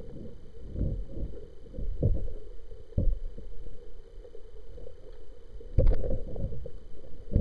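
Muffled low rumbling of water moving against a camera held underwater, with soft knocks from handling, a stronger cluster of knocks near the end.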